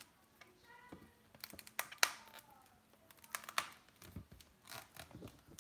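Long latex modelling balloon squeaking and creaking as it is twisted and handled, an irregular scatter of sharp rubbery clicks and short squeaks, the loudest about two seconds in.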